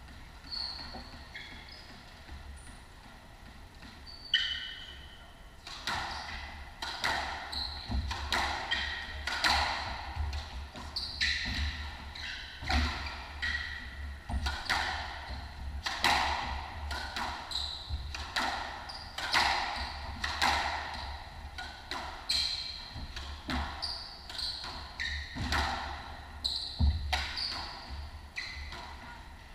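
A squash rally that starts about four seconds in: the ball is struck by rackets and smacks off the walls roughly once a second, with short high squeaks of court shoes on the wooden floor between the hits.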